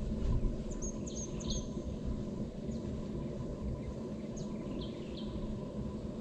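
Birds chirping, scattered short high calls, over a constant low rumble of outdoor background noise, with a faint steady thin tone running underneath.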